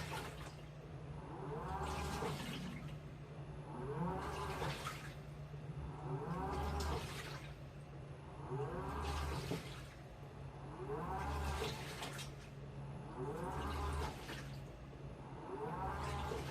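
Washing machine in its wash cycle: the drum turns in repeated strokes about every two seconds, each with a motor whine that rises and falls in pitch, over water sloshing and a steady low hum.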